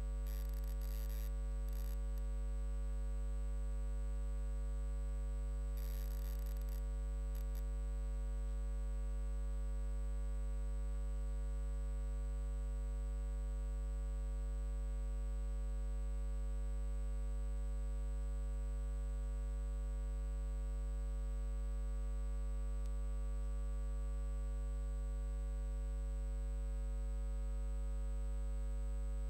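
Steady electrical mains hum: a low 50 Hz buzz with its overtones and a thin high whine, unchanging throughout. Two brief bursts of high hiss come about a second in and again around six seconds.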